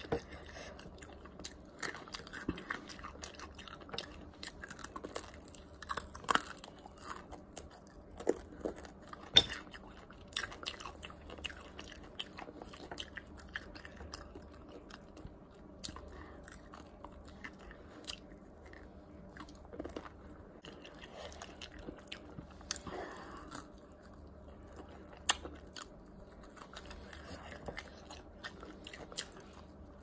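A person chewing and biting Popeyes fried chicken close to the microphone, with irregular crisp clicks and crunches throughout.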